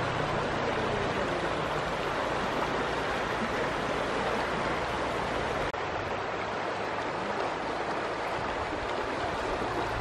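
Shallow river rushing steadily over pebbles and stones, with a brief dropout just over halfway through.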